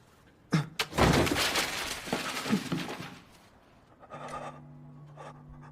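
A loud crash, like something breaking or shattering, that fades out over about two seconds, followed by a faint low steady hum.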